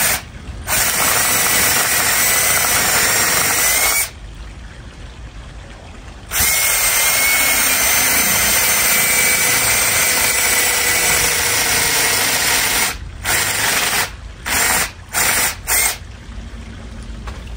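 Cordless drill boring a 7/8-inch paddle bit into the end grain of an aspen log, its motor running with a steady whine. A run of about three seconds, a pause of about two seconds, a long run of about six and a half seconds, then several short bursts near the end.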